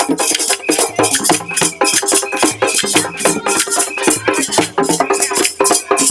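Live West African percussion: skin-headed hand drums played fast with wooden clappers or sticks struck along, making a dense, driving rhythm.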